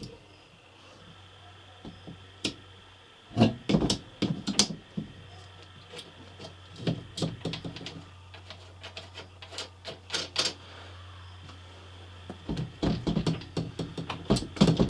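Scattered metal clicks and knocks from a van's captain driver seat being fitted onto its seat base by hand, in clusters about three and a half seconds in, around ten seconds, and near the end.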